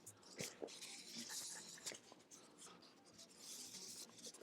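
Faint rubbing of an alcohol wipe scrubbing old dried-out thermal paste off CPU parts, in two stretches of wiping, with a few light clicks near the start.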